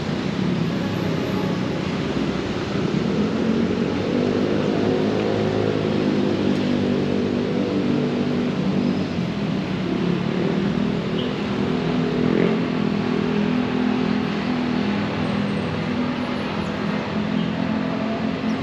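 Road traffic: motor vehicle engines running over a steady hiss of traffic. One engine's note rises and falls about three to seven seconds in, and another passes around ten to twelve seconds in.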